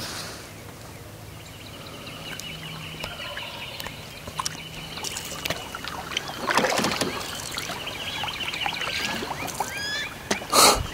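Canoe paddle strokes dipping and pulling through river water, with a louder splashing stretch around the middle and a sharp, loudest stroke near the end. A steady high chirping runs underneath from about two seconds in.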